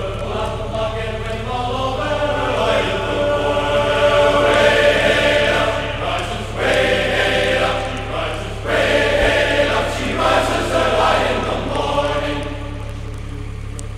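Background music: a choir singing, over a steady low hum.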